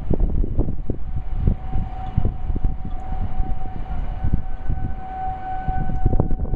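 Distant Federal Signal outdoor warning sirens sounding a steady tone during a siren test, joined by a second, higher tone about four seconds in. Heavy wind rumble on the microphone is louder than the sirens.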